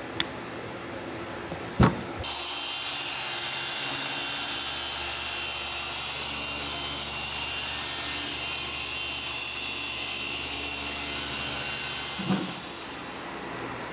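An electric power tool starts abruptly about two seconds in, runs steadily with a whining hiss for about ten seconds, then stops. Sharp knocks come just before it starts, and a thump as it stops.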